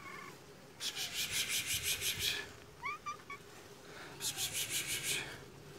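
A cat gives a short rising meow about three seconds in. Before and after it come two loud bursts of fast, rhythmic scratchy rubbing noise, about seven strokes a second.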